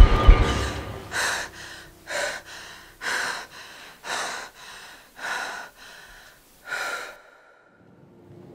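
A woman breathing hard in loud, gasping breaths about a second apart, with softer breaths between. The breathing cuts off suddenly about seven seconds in.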